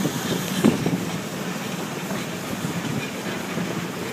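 Narrow-gauge train cars rolling on the rails: a steady rumble with wheels clicking over the rail joints, and one louder clack just under a second in.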